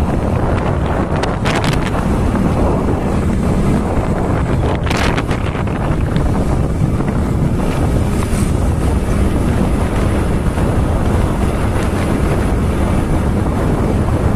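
Wind rushing over the camera microphone on a moving motorcycle, a loud, steady noise heaviest in the low end, with the ride's engine and road noise buried beneath it.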